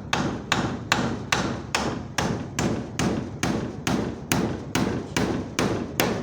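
A hammer driving nails into timber with a steady run of about fifteen even blows, a little over two a second.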